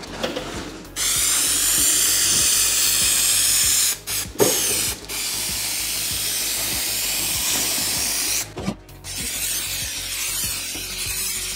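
Aerosol can of 3M Hi-Strength 90 spray adhesive hissing in two long sprays of about three seconds each, with a few short puffs between them, coating seat foam with glue.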